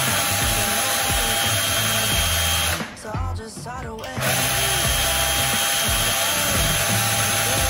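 Small cordless drill-driver running in two long runs as it turns a screw in a radio-controlled truck part, with a break of about a second and a half about three seconds in.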